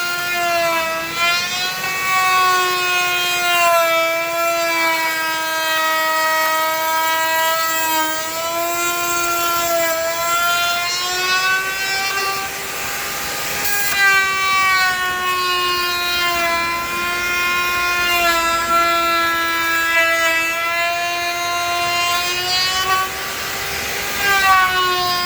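Electric woodworking power tool running with a steady, loud whine whose pitch wavers and dips at times, with a stretch of rougher hiss about halfway through.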